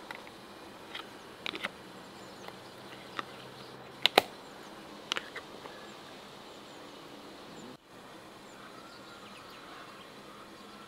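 Plastic lids being pressed onto large glass jars: a scattering of sharp clicks and knocks, the loudest a quick pair about four seconds in, over a steady outdoor background.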